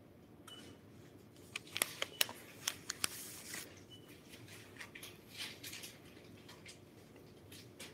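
Light clicks and taps in a quiet room, several sharp ones close together about two seconds in, then softer scattered ticks.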